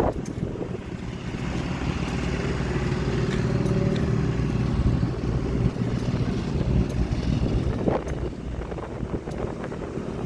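Strong wind blowing and buffeting the microphone, a continuous low rumble with a few sharp knocks.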